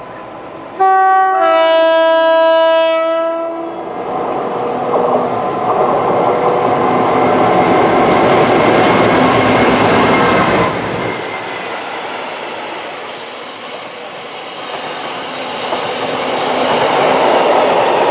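Two-tone horn of a DB freight locomotive sounding about a second in, a short higher note followed by a longer lower one. The locomotive then passes, loudest for several seconds, and a long rake of tank wagons rolls by with wheel clatter that swells again near the end.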